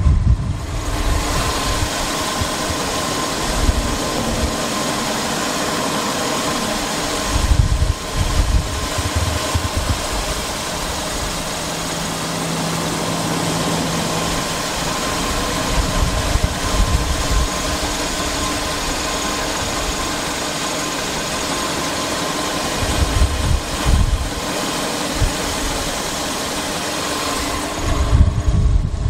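2014 Volkswagen Jetta's 1.6-litre inline-four idling steadily. Wind buffets the microphone in low rumbling gusts several times.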